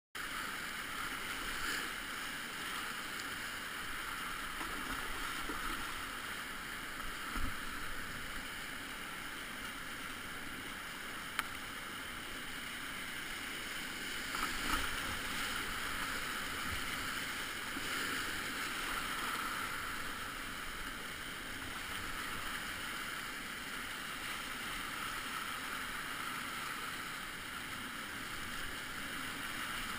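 Whitewater rapids rushing steadily around a kayak, with a few brief splashes or knocks from the paddle, the most noticeable about 7, 11 and 15 seconds in.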